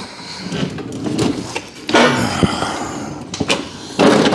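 Irregular knocks, scrapes and rustling of someone working under a car on its exhaust, with a loud clatter near the end.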